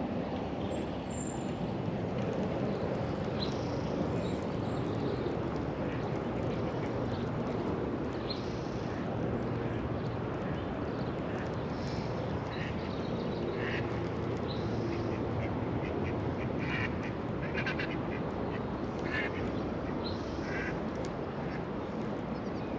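Ducks quacking now and then in short calls, most of them in the second half, over a steady low background hiss.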